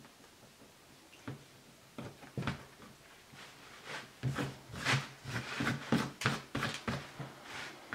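Small lino-cutting gouge scraping into a lino sheet as small circles are dug out: a run of short, sharp scratchy strokes that come thicker and louder from about halfway through.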